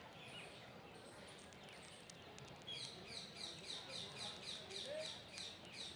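A rapid run of high, sharp chirps, about four a second, starting near the middle and lasting about three seconds, over a faint background hiss.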